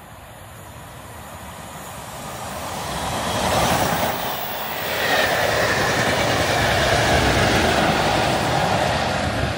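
A diesel-hauled test train passing at speed, growing steadily louder over the first few seconds as the coaches go by. Colas Rail Class 37 locomotive 37057 then passes with its English Electric diesel engine running and a high whistle, falling slightly in pitch, from about five seconds in.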